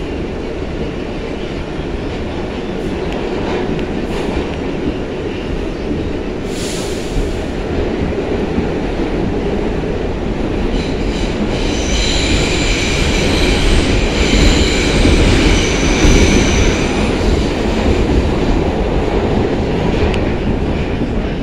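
New York City subway 6 train running through a tunnel, heard from inside the car: a continuous low rumble that grows louder, with the wheels squealing on the rails for several seconds past the middle.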